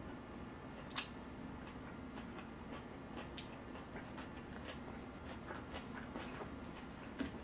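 Quiet chewing and mouth clicks from someone eating stir-fried kimchi, with small scattered clicks from wooden chopsticks picking food off the plate; a sharper click about a second in and another near the end.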